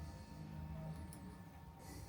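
Quiet room tone: a faint steady low hum, with a single faint tick a little after a second in.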